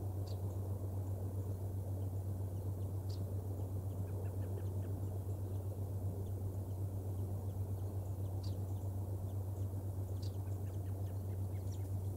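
Steady low hum with a background hiss on the nest camera's outdoor audio, and a few faint, very short high bird chirps spread through it.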